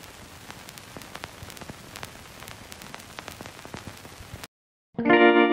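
Steady static hiss dotted with faint scattered clicks and pops, which cuts off suddenly about four and a half seconds in. After a brief silence, effects-laden electric guitar music starts near the end.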